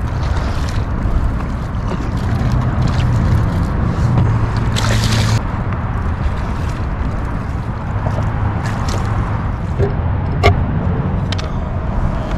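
Water sloshing against a kayak as a hooked largemouth bass is fought and landed, over a steady rumble of wind on the microphone. A short splashy rush comes about five seconds in, and a couple of sharp clicks near the end.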